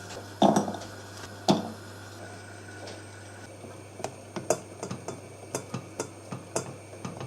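Light clicks and knocks of a utensil against a bowl: a few louder knocks in the first two seconds, then quieter clicks about twice a second.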